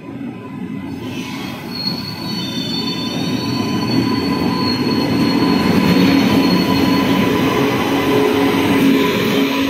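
Express train with ICF passenger coaches pulling into a station, its wheels rumbling on the rails and growing louder as the locomotive draws alongside. A high, thin squeal of the braking wheels runs over the rumble from about two seconds in.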